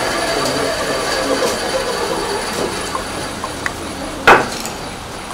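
An electric power tool running with a steady high whine, slowly getting quieter, with a few light clicks and one loud sharp knock about four seconds in.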